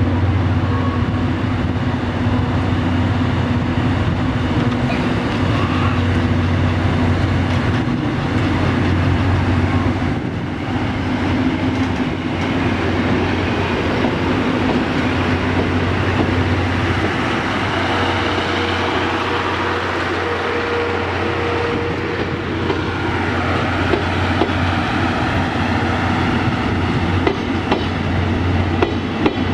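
Train on the move: a steady low hum from the EF65 electric locomotive hauling the consist, with the rumble and clatter of wheels on rail.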